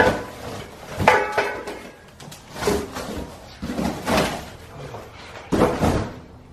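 Large cardboard shipping boxes being shoved and shifted about: a run of scrapes and knocks roughly once every second or so, one with a brief squeak of cardboard.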